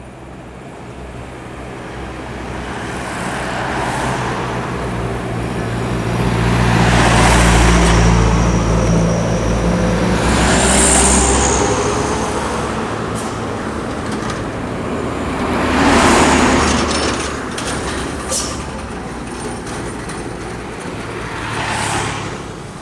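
Diesel intercity coach moving off slowly, its engine rumble building over the first several seconds and easing after about twelve seconds. Several short, sharp hisses of air from its air brakes come through, the loudest about halfway in.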